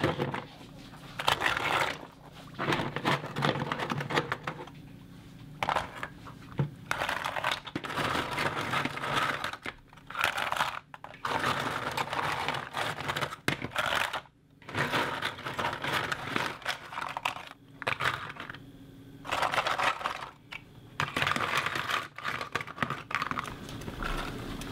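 Hard scallop shells clattering and grating against each other as they are scrubbed by hand in a pot of water. The rattling comes in repeated bursts with short pauses between them.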